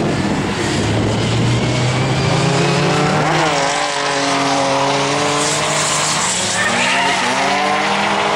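Drift cars at full throttle, led by a Toyota Supra: engines held at high revs, the pitch dipping and climbing back about three seconds in and again around seven seconds in, over the hiss of tyres sliding on the tarmac.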